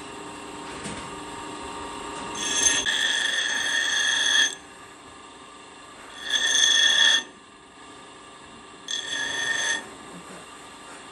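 Bench grinder running steadily while the metal end of a motorcycle drum-brake shoe is pressed against its wheel three times, each contact giving a loud, high-pitched ringing screech. The first contact lasts about two seconds and the other two about a second each.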